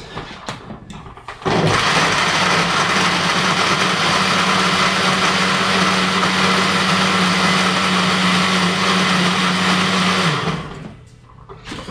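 Countertop blender running steadily for about nine seconds, mixing a fruit-and-spinach smoothie with ice. It starts about a second and a half in and winds down near the end.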